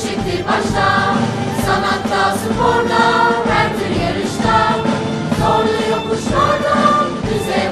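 Background music with a choir singing over a steady beat.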